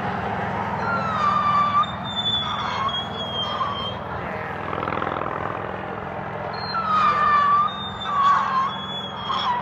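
Consumer 7-shot firework (the Sick Goose) firing whistling effects: two clusters of short, high squeals that slide downward in pitch, a few seconds apart, over a steady low hum.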